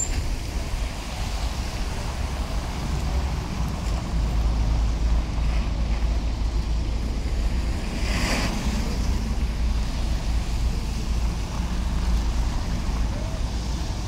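Wind buffeting the microphone as a steady low rumble, over city traffic on a wet street: a bus and cars passing with tyre noise on the wet road. A short hiss about eight seconds in.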